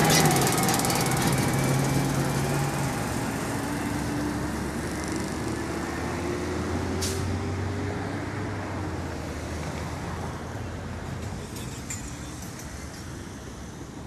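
Peterbilt 520 garbage truck's engine pulling away after passing close by, its note rising slowly as it accelerates and fading steadily into the distance. A brief sharp hiss comes from the truck about seven seconds in.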